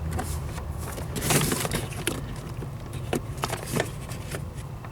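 Small clicks, scrapes and rustles of hands working a throttle cable end into the gas pedal arm, with a louder scrape about a second in and a few sharp clicks near the end.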